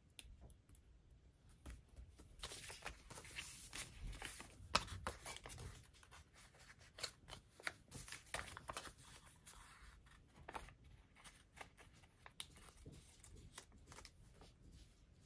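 Faint handling of paper sticker sheets and planner pages: soft rustling with scattered small clicks and taps, with a busier rustle between about two and five seconds in.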